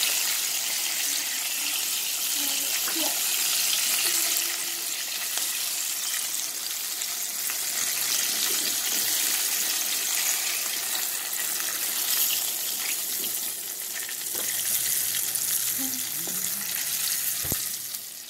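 Chicken wings deep-frying in a pot of hot oil: a steady, dense crackling sizzle.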